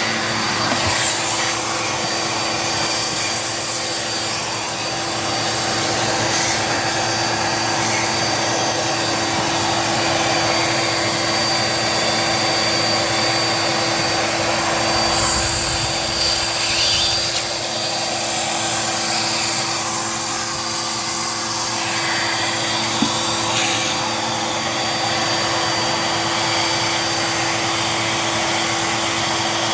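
Dirt Devil Multi-Surface vacuum cleaner running steadily with a high-pitched motor whine, its suction sound shifting now and then as it is worked over the floor. There is a small click about 23 seconds in.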